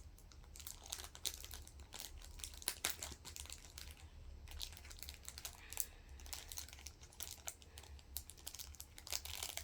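Foil Pokémon booster pack wrapper crinkling and trading cards being handled, a faint run of irregular small clicks and rustles.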